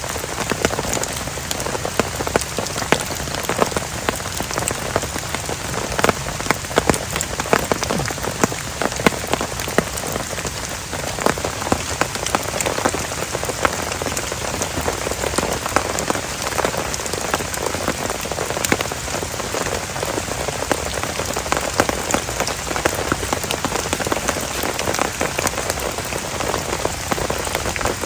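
Heavy rain falling steadily, with many sharp drops pattering on a nearby surface.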